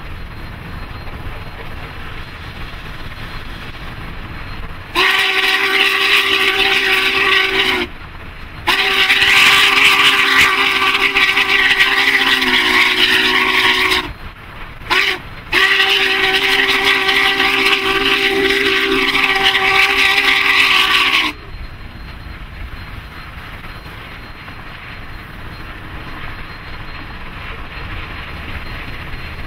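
Union Pacific 844's steam locomotive whistle, a chord of several notes, sounding the grade-crossing signal: two long blasts, a short one and a final long blast. A steady low rumble from the passing locomotive runs underneath before and after.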